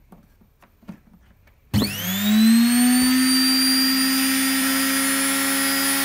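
Washing machine's brushed universal motor, wired straight to the mains with no speed control, switched on after a few faint clicks: it whines up to speed within about half a second, then runs steadily at its highest speed with a loud, high whine.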